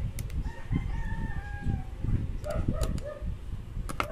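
A rooster crowing once: one long call that starts about half a second in and trails off lower before the two-second mark. A few sharp clicks come from small phone parts being handled.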